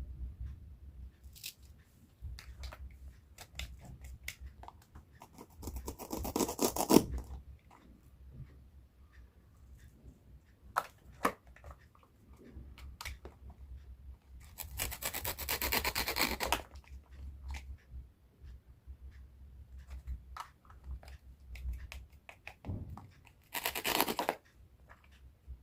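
Knife cutting produce on a cutting board: scattered sharp taps of the blade on the board, with three longer stretches of rubbing and scraping, the longest about two seconds, near the middle.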